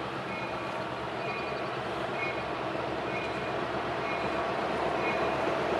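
EMD diesel locomotives of a freight train running toward the listener, growing steadily louder, with a locomotive bell ringing about once a second.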